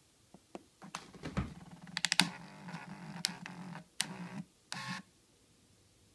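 Small thermal receipt printer printing several lines of text: its paper-feed motor hums with rapid clicking for about four seconds, with two brief pauses, then stops. A couple of faint clicks come just before it starts.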